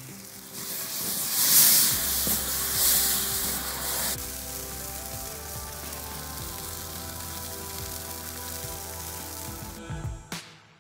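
Water-soaked scrubbing pad of a Grill Rescue brush wiped over hot charcoal-grill grates, sizzling loudly as the water flashes to steam for about three seconds, then stopping abruptly. Background music with steady tones runs underneath, and a short knock comes near the end.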